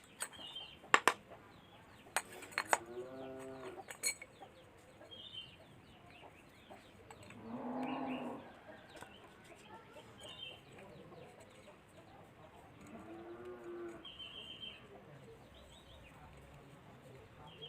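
Farm animals calling now and then, three drawn-out calls of about a second each, with small birds chirping high and often. A few sharp clicks come in the first few seconds.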